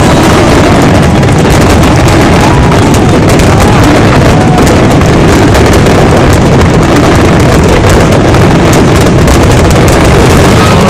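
Dense fireworks barrage, with continuous bangs and crackling so loud that they overload the phone microphone into a steady, distorted roar.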